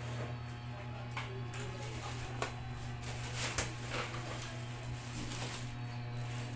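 Clear plastic packaging rustling and crinkling as stand-fan parts are handled and pulled from their bags, with a few sharp clicks about two and a half and three and a half seconds in. A steady low hum runs underneath.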